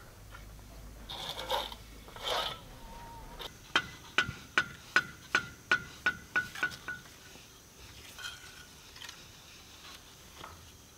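A quick run of about a dozen sharp, ringing taps, roughly three a second, typical of hand-tool tapping on a building site. Two short scraping sounds come before it.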